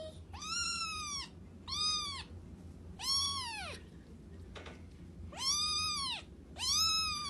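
A cat meowing five times, each meow rising and then falling in pitch.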